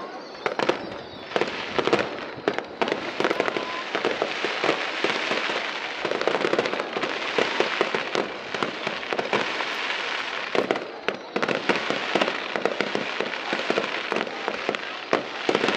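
Fireworks display: aerial shells bursting in a rapid, irregular string of bangs, with a dense crackling from glittering stars for several seconds in the middle.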